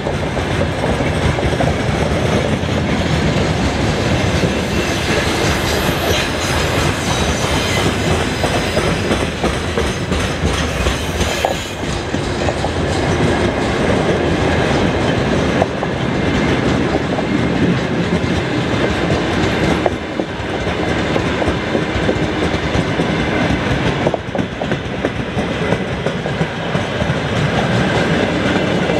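Freight train's mixed wagons (gondolas, tank cars and flatcars) rolling past: a loud, steady rumble of steel wheels on rail, with scattered sharp clacks as the wheels cross the rail joints.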